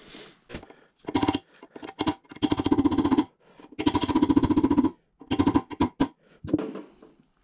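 Hammer striking the steel steering head of a moped frame in several bursts of rapid metallic taps, ringing at the same pitches with each strike. The work reshapes a bearing seat that has a flat spot so the bearing race will seat.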